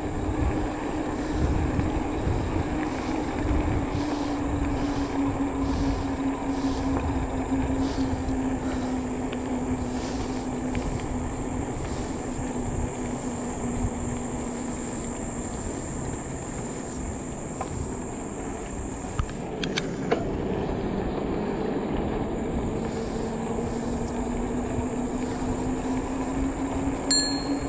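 E-bike's electric motor whining at a steady pitch that sags slowly through the middle and climbs back toward the end as the riding speed changes, over low wind buffeting on the microphone. A brief knock about twenty seconds in.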